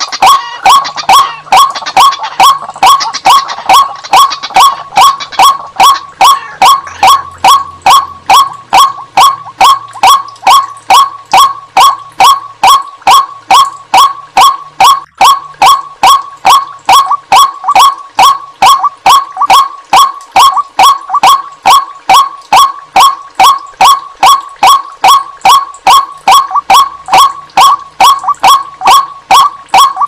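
White-breasted waterhen (ruak-ruak) calling: loud, monotonous repeated notes at about three a second, unchanging throughout, from a looped bird-trapping lure recording.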